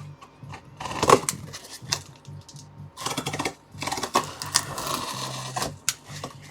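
Cardboard box being handled and opened by hand: knocks and clicks, with a sharp knock about a second in, then longer stretches of scraping and rustling.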